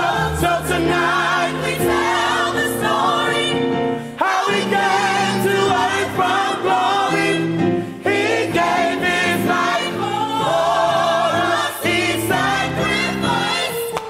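Gospel choir singing in full harmony, voices wavering with vibrato over steady low notes, the phrases changing about every four seconds.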